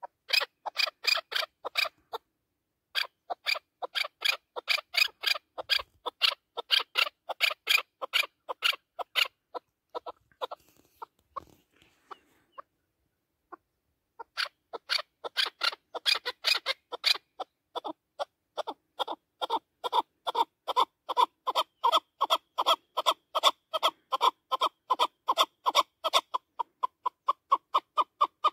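Chukar partridge calling: long runs of short, sharp notes at several a second, broken by a pause of a few seconds about ten seconds in. In the later run the notes are clearer and steadier in pitch.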